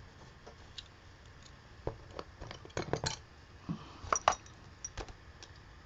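Light clinking and tapping of art supplies being handled on a work table: about a dozen small, irregular clicks, bunched most closely in the middle.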